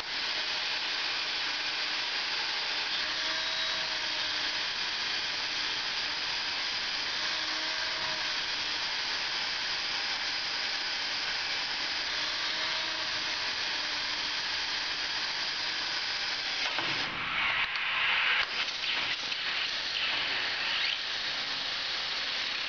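Power drill running steadily as its bit cuts through the wall of a pressurized 2-inch steel pipe through a hot-tap drill guide. About 17 s in, the sound turns louder and rougher with scraping for a few seconds, then stops abruptly.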